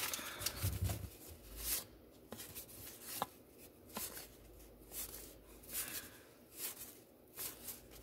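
Baseball cards being slid off a stack and flipped one by one: soft paper swishes about once a second, with a few light clicks of card edges.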